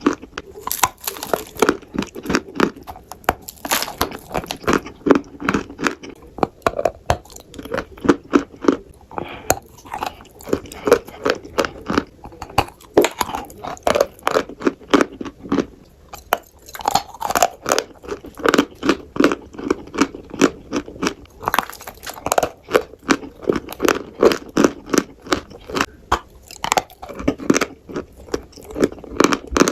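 A person biting and chewing crunchy food: crisp crunches repeating in a steady chewing rhythm.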